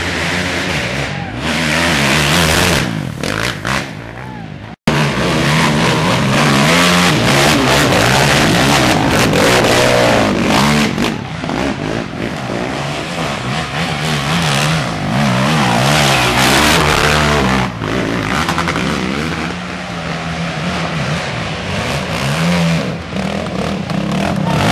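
Racing ATV (quad) engines revving hard under load as quads climb a steep dirt hill, the pitch rising and falling with the throttle. The sound cuts out for an instant about five seconds in.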